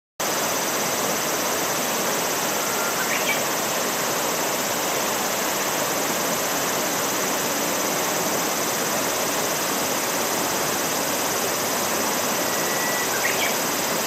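Steady rush of flowing river water, starting suddenly just after the start, with a faint short bird chirp about three seconds in and again near the end.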